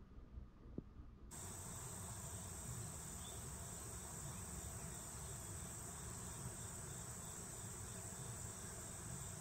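Insects trilling in a steady, high-pitched chorus that cuts in abruptly about a second in, over a low rumble.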